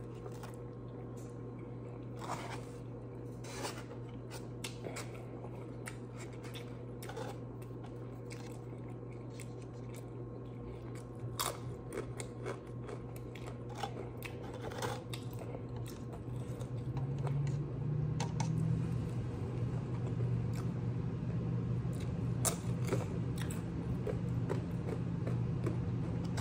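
Close-up chewing and biting of tacos, with scattered short crunches and clicks. Under it runs a steady low hum that gets louder about two-thirds of the way through.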